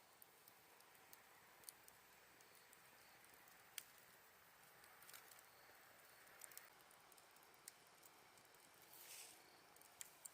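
Wood campfire crackling softly, with scattered sharp pops and a brief hiss about nine seconds in, over a faint steady background of autumn night insects.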